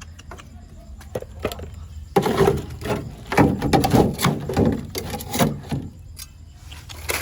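Clicks and knocks with a person's voice, loudest between about two and six seconds in, over a low steady rumble.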